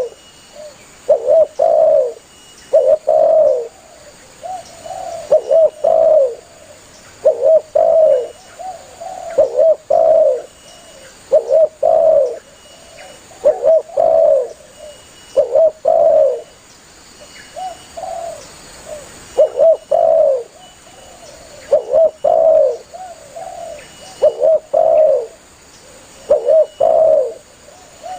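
Spotted dove (tekukur) cooing vigorously, repeating its short multi-note call phrase about every two seconds, with softer notes in between.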